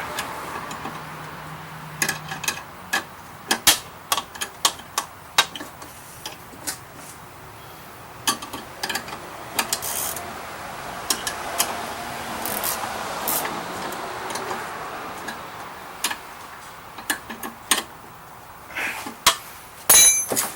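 Irregular metallic clicks and knocks from hands working on a snow blower.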